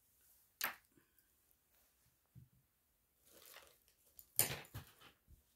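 Handling noise close to the microphone: a sharp click a little over half a second in, a soft rustle around three seconds in, then a louder knock followed by a few light taps near the end.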